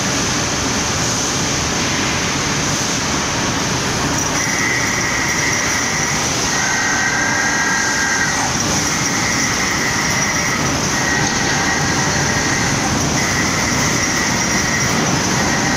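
Hot-rolling steel mill roughing line running: a loud, steady mechanical din from the roller table and 3-high roughing stand. From about four seconds in, a high squealing tone comes and goes in stretches of about two seconds.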